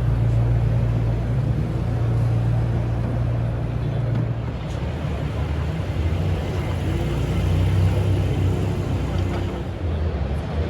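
Steady low rumble of a vehicle running, with a shift in its low drone about four and a half seconds in.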